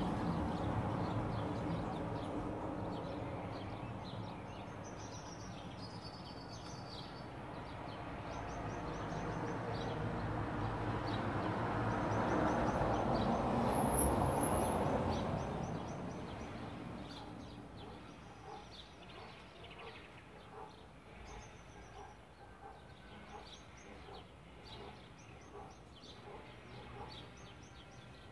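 Passing-vehicle noise that fades, then swells again to a peak about 13 seconds in and dies away, leaving small birds chirping in short, quick calls.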